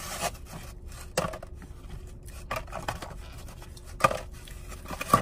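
Scattered soft scrapes, rubs and light taps, a second or so apart, as a styrofoam takeout box and its packaging are handled.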